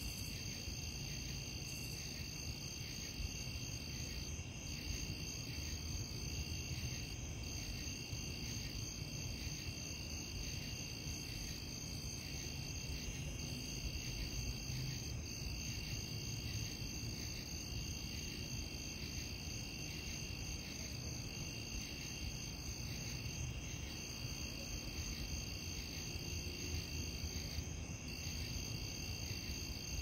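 Crickets chirping steadily in a night chorus, several pitches at once, one of them a fast pulsing trill, over a low steady rumble.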